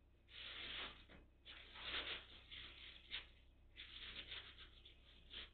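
Cat rustling and scratching at something on the floor: several short bursts of faint scratchy rustling, a few quick scrapes in between.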